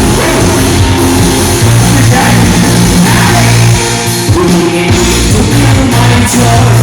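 Loud band music with singing.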